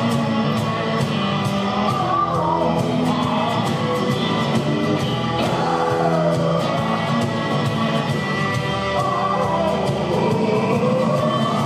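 Live blues-rock band playing: a lead vocal sliding up and down in long held notes over acoustic guitar, keyboard and a steady beat.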